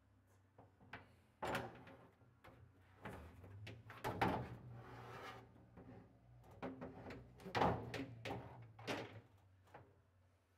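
A heavy metal cabinet shelf being set onto its shelf hooks inside a garage storage cabinet: a run of clunks and knocks with metal scraping between them, the sharpest knocks about a second and a half, four, seven and a half and nine seconds in.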